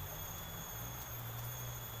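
Insects trilling steadily at one high pitch, over a low rumble.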